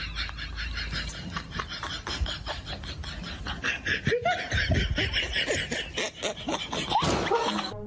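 Laughter: quick, repeated snickering and chuckling, with a short rush of noise near the end.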